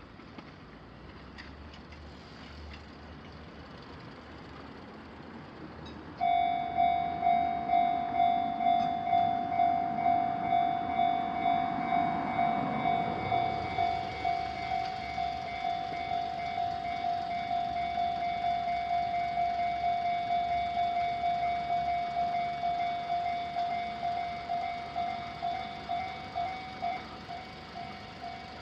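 A Japanese railway level-crossing alarm starts suddenly about six seconds in and rings steadily, an electronic bell tone striking about one and a half times a second, warning that a train is approaching and the barriers are coming down. Before it there is a faint traffic hum, and a vehicle passes by around the middle.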